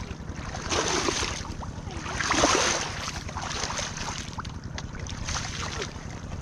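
Shallow water splashing and sloshing in three bursts, as if stirred by hand, over a steady low rumble of wind on the microphone.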